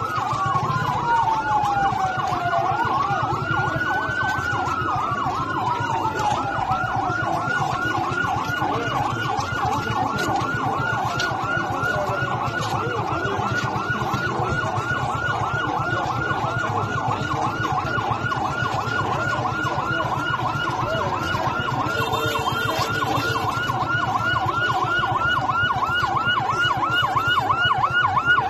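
Ambulance siren, starting with slow rising-and-falling wails and switching about five seconds in to a fast, rapidly repeating yelp, over the steady hubbub of a large crowd.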